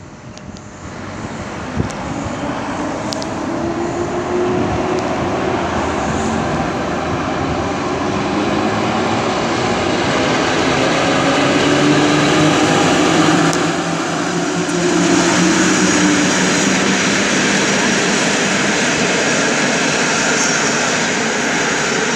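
EP07 electric locomotive and its Intercity passenger coaches passing through the station. The wheel and rail noise builds over the first few seconds and stays loud while the coaches run past, with a few faint steady tones drifting up and down in pitch.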